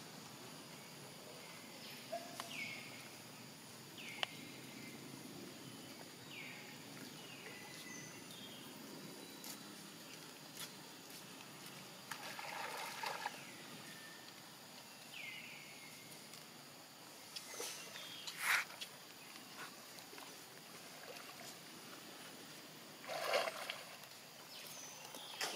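Water splashing and sloshing as a macaque swims through flood water, in a few short bouts about halfway through and near the end. Behind it are a steady outdoor hiss and repeated short falling chirps.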